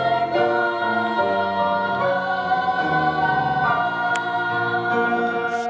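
Music: a choir singing long held notes that step through a slow series of chords.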